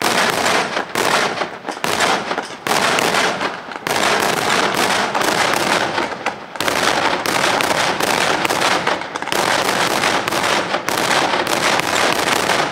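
Fireworks going off in a dense, unbroken barrage of rapid bangs and crackling.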